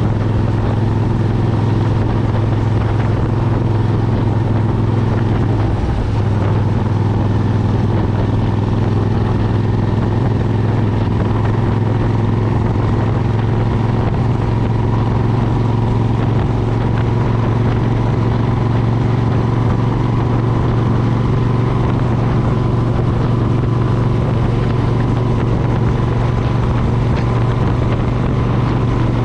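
2003 Suzuki Intruder 1400's V-twin running steadily at cruise through Vance & Hines Classic pipes, heard from the rider's chest, with a brief dip in the note about six seconds in.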